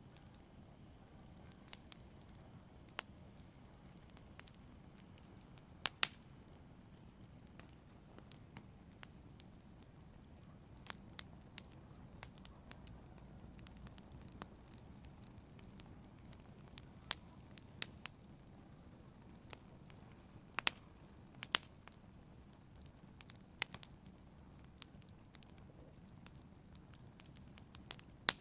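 Burning logs in a fireplace crackling: irregular sharp pops and snaps, a few louder than the rest, over a steady low rush of the flames.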